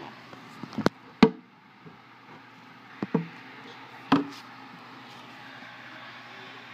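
Camera shutter clicking as pictures are taken: a few sharp, irregularly spaced clicks, some in quick pairs, the loudest about a second in.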